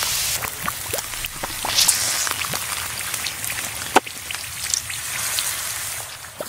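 Sizzling and crackling with scattered pops from molten green material bubbling over heat, one sharper pop about four seconds in; it fades out near the end.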